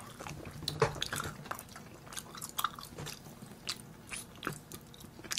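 Close chewing and mouth sounds of eating Andong jjimdak, a soy-braised chicken dish: soft, irregular wet smacks and small clicks.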